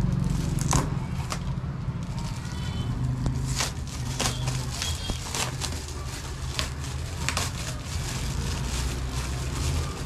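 Sharp, irregular crackling and crinkling of a shiny foil gift bag and its plastic wrapping as it is handled and torn open, over a steady low rumble.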